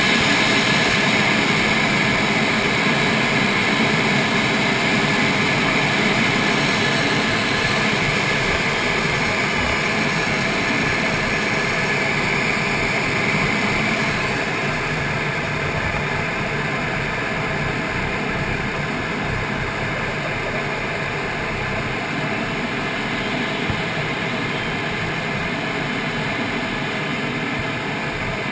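Steady jet engine and airflow noise heard inside the cockpit of a MiG-29UB in flight, from its two Klimov RD-33 turbofans. The higher hiss eases about halfway through.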